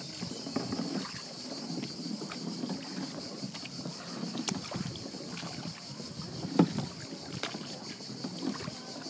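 Canoe paddling: a paddle dipping and splashing in the river water, with a few short knocks (paddle against the hull), the loudest about six and a half seconds in, over a steady hiss.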